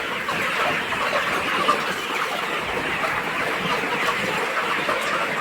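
A large flock of young chickens, about ten weeks old, chirping and clucking together in a steady, dense chorus of many overlapping calls.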